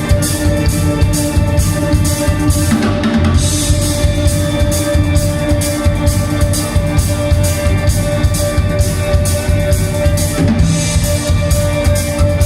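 A rock band playing, with a drum kit keeping a steady beat of about four strokes a second over sustained guitar and bass notes.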